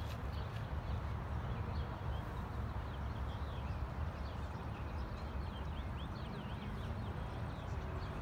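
Faint hoofbeats of a show pony moving around the dirt arena footing, over a steady low outdoor rumble, with small birds chirping.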